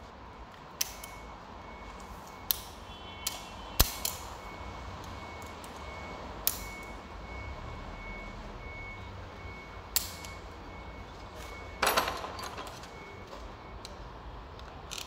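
Metal parts and tools clinking and knocking during workshop assembly: six sharp, briefly ringing clinks, then a short clattering rattle about twelve seconds in. Behind them a steady series of short high beeps repeats and stops shortly before the end.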